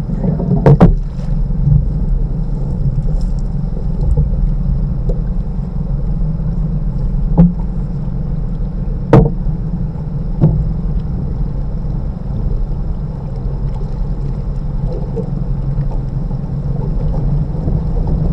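Steady motor drone of an electrofishing boat, with a faint constant high whine above it. A few sharp knocks cut through, the loudest about nine seconds in.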